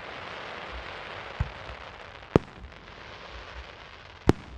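Fireworks going off: a crackling fizz through the first couple of seconds, then two sharp bangs, one about halfway through and one near the end, with a duller thump before them.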